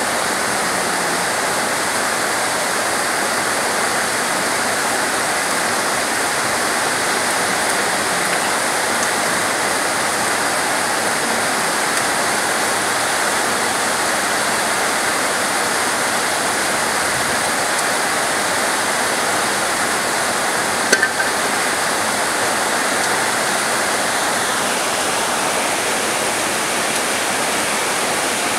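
Heavy rain falling steadily on coconut palms, a dense even hiss. One brief sharp click about three quarters of the way through.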